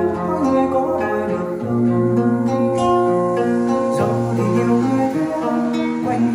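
Recorded song with guitar over a steady bass line, played back loud through FBT CS1000 loudspeakers fed from a Midas MR12 mixer with no EQ applied.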